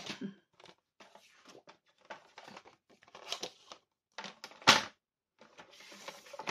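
Kraft cardstock rustling and sliding over a plastic scoring board and paper trimmer, with soft ticks of handling. There is one sharp knock about two-thirds of the way through, likely the trimmer being set down on the board.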